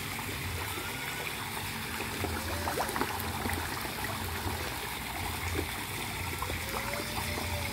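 Steady trickling and bubbling water in a tilapia pond, with small splashes and clicks from the fish crowding the surface for pellets.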